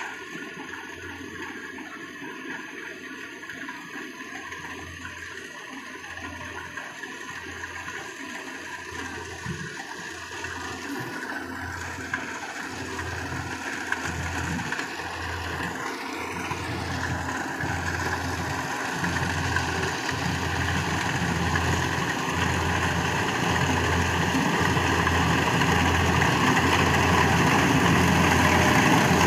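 Yanmar rice combine harvester's diesel engine and machinery running with a low throb, growing steadily louder as the machine draws closer.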